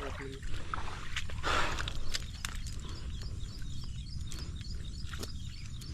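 Outdoor rural background by the water: a steady low rumble with scattered small clicks and knocks, a short rush of noise about a second and a half in, and faint repeated chirps in the second half.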